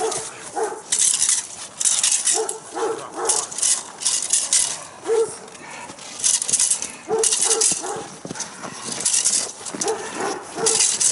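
A large dog barking in short calls, often two close together, repeated throughout while it plays. Loud bursts of hiss come and go between the barks.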